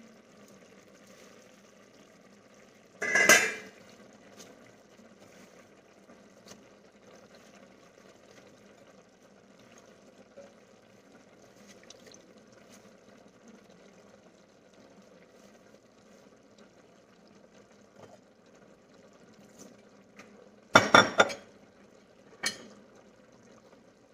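Stainless-steel pot lid set down with a metallic clank about three seconds in, over a faint steady simmer of the coconut-milk stew. Near the end comes a short burst of clattering knocks from kitchenware being handled.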